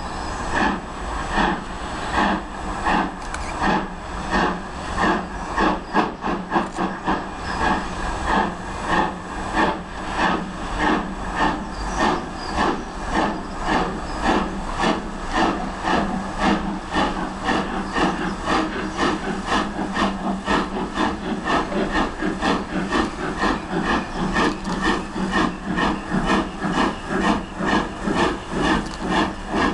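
Midland 4F 0-6-0 steam locomotive 43924 pulling away with a train, its exhaust beating out a steady, even chuff with a hiss of steam underneath as it works hard from the start.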